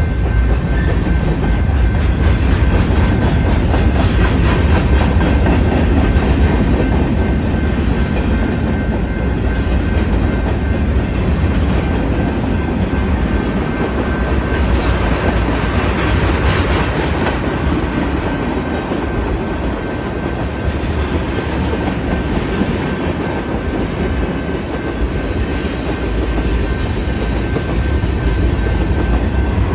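Freight cars of a BNSF manifest train rolling past close by over a grade crossing: a steady low rumble with rapid clickety-clack of steel wheels over the rail joints, and a thin steady high whine over it.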